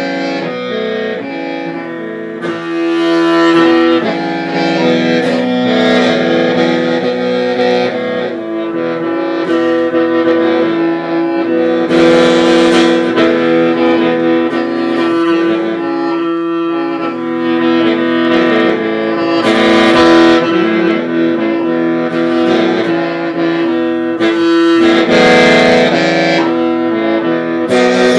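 Hmong qeej (lusheng), a bamboo free-reed mouth organ, playing several notes at once over a steady held drone note while the melody notes change above it.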